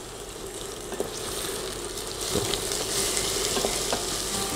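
Thinly sliced onions sizzling gently in a little oil in a stainless steel saucepan over low heat, softening. A wooden spoon stirs them with a few light knocks, and the sizzle grows a little louder about two seconds in.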